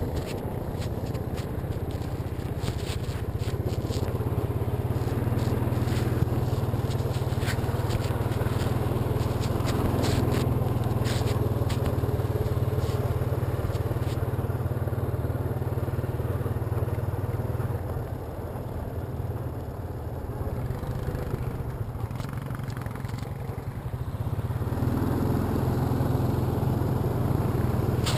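Honda ATV engine running steadily at riding speed, with gravel crunching and clicking under the tyres. It goes quieter for a few seconds a little past the middle, then picks up again near the end.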